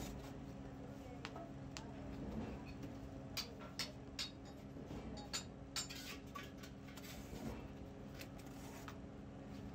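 Metal rod raking through lumps of charcoal and brass castings in a fire pit: scraping with sharp clinks, most of them about three to six seconds in, over a steady low hum.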